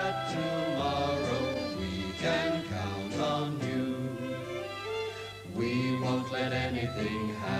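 Music: the closing song, voices singing over instrumental accompaniment.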